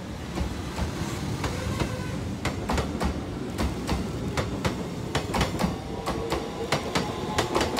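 Kintetsu electric limited-express train (old-livery 16000 series coupled to a 16600 series Ace) running past the platform with a steady rumble. Its wheels click sharply and quickly over the rail joints from about two and a half seconds in.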